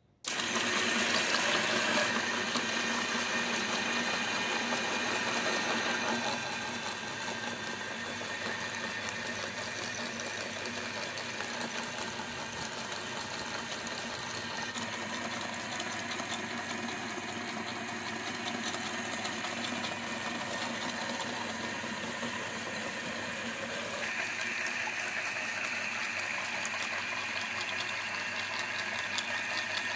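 Electric meat grinder running, its auger crushing whole green grapes and forcing the pulp through the perforated plate, a steady motor sound mixed with a dense crackle. It starts abruptly at the very beginning.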